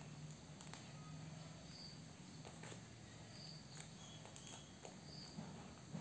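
Near silence: quiet room tone with a faint high chirp repeating about every one and a half to two seconds, and a few soft clicks.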